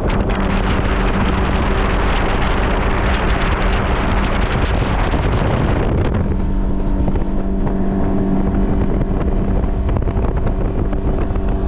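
Boat's outboard motor running steadily under way, with a loud rush of wind on the microphone and water noise. About halfway through the rush drops away sharply while the motor's hum goes on.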